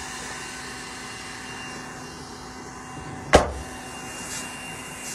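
Steady whirring noise with a faint hum, and one sharp thump a little over three seconds in.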